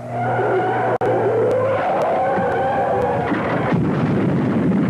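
Propeller aircraft engine running loudly with a steady drone whose pitch slowly slides, as a plane makes a carrier landing approach. There is a brief break in the sound about a second in.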